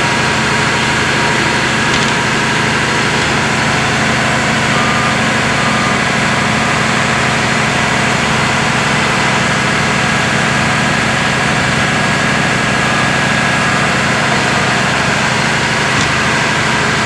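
Steady, loud drone of a running engine, unchanging throughout, with a couple of faint taps about two seconds in and near the end.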